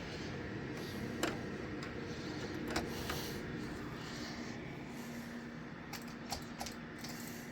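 Steady hum of an HP Z820 workstation's cooling fans running, with a few light clicks and knocks scattered through, a small cluster of them about six seconds in.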